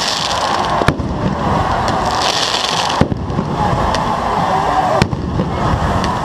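Pyrotechnic bangs at a stadium: three sharp bangs about two seconds apart over a continuous dense noise.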